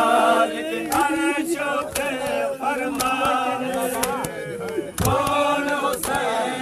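Men's voices chanting a noha, a Shia lament, in a group. A sharp beat about once a second keeps time with the chant, typical of the mourners' matam (chest-beating).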